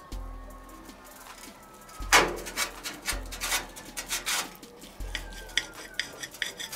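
Knife sawing through a cooked beef steak on a ceramic plate, the blade scraping and clicking against the plate and the metal tongs, in a run of back-and-forth strokes that are strongest from about two seconds in.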